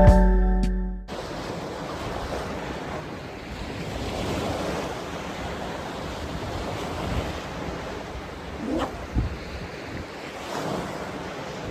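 Surf breaking on a beach with strong wind: a steady rushing noise. Background music cuts off about a second in.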